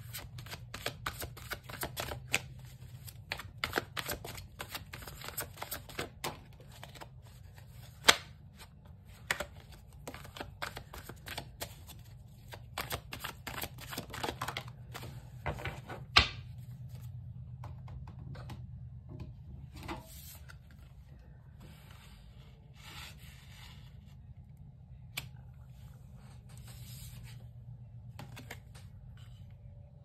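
A deck of tarot cards being shuffled by hand: a quick run of card clicks and snaps for about sixteen seconds, with two sharper snaps. After that come sparser rustles and single clicks as cards are drawn and laid down.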